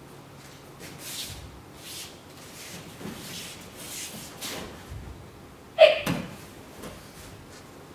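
Cotton practice uniforms rustling and bare feet shuffling on tatami mats as an aikido throw and pin are performed. A single loud, sharp sound cuts in just before six seconds in, far louder than the rest.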